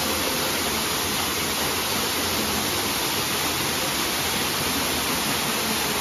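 Waterfall pouring down a rock face into a pool: a steady, even rush of falling water.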